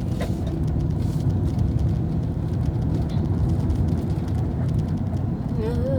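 Car cabin noise while driving: a steady low rumble of engine and road. Near the end, a wavering melodic line of music comes in.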